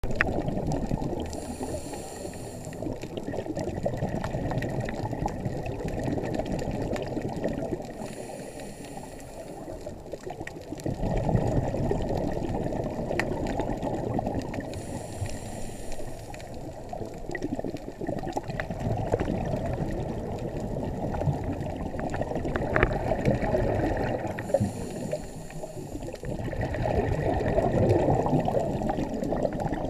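Scuba diver breathing underwater through a regulator, heard muffled through the water. Four slow breaths, each a short hiss of inhaling followed by several seconds of rumbling exhaled bubbles.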